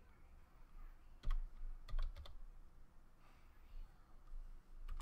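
Typing on a computer keyboard: a few scattered keystrokes, the clearest a little over a second in and a quick cluster around two seconds in.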